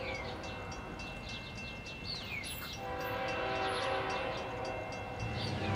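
Horn of an approaching Florida East Coast Railway freight train sounding a steady chord in the distance from about three seconds in, over the low rumble of the diesel locomotives, which grows near the end. A bird's falling whistled call comes three times.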